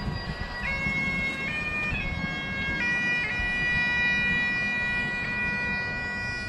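Bagpipes playing a slow tune: a few note changes in the first three seconds, then one long held note, with wind rumbling on the microphone.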